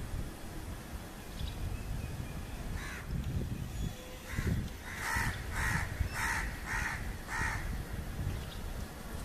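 A bird gives a run of about six short, evenly spaced calls, a little under two a second, about halfway through, over a low steady rumble.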